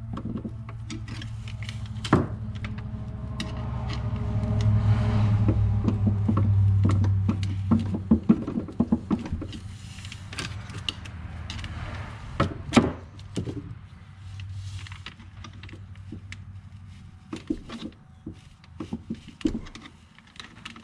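Metal tools clicking and knocking against a Tuff Torq K46 hydrostatic transmission as its stuck internal block is pried and rocked to work it loose, with a sharp knock about two seconds in and another about thirteen seconds in. A steady low hum runs underneath, louder for a few seconds in the first half.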